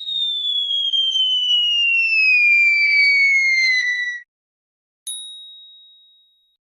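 Cartoon-style whistle falling steadily in pitch for about four seconds, like a falling-object gag sound. It stops, and about a second later comes a single high ding that rings out and fades.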